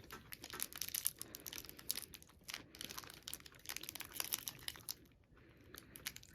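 Candy wrapper crinkling and tearing as a snack is unwrapped, in quick irregular crackles with a short pause about five seconds in.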